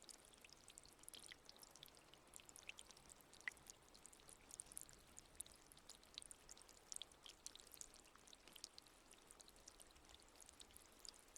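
Faint water trickling, a steady patter of many small, irregular droplet splashes.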